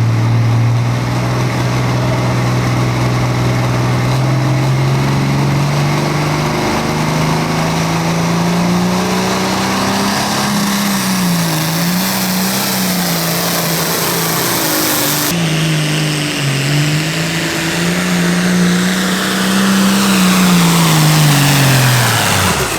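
Pro Farm diesel pulling tractor running under load down the pulling track. The engine note climbs steadily for about ten seconds, wavers up and down, then drops sharply right at the end as the throttle comes off.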